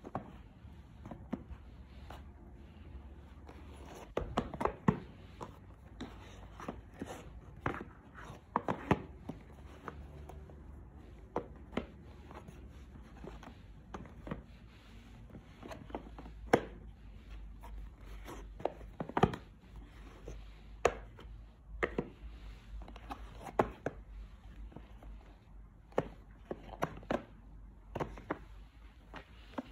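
Rigid cardboard gift boxes tapping and knocking against each other as a hand flips through a stack of them: irregular sharp clicks, a few a second at times, with louder knocks about five seconds in and twice in the second half.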